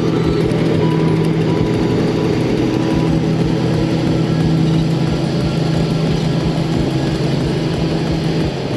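Heavy vehicle engine running steadily at an even pitch, changing pitch near the end.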